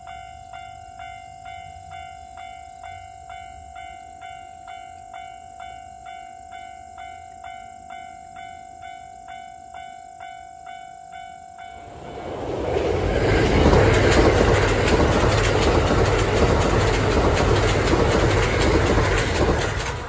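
Japanese level-crossing warning bell ringing about twice a second. From about twelve seconds in, a Kintetsu limited express train passes close by, and its loud running and wheel noise drowns out the bell.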